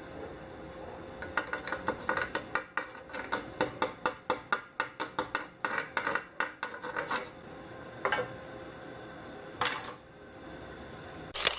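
A hand tool working metal: a quick run of sharp metallic strokes, about four a second, then a few single strikes.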